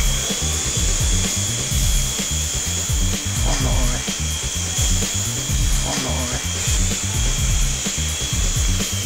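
WL Toys V319 coaxial toy helicopter hovering, its small electric motors and rotors giving a steady high whine. Background music with a heavy beat plays under it.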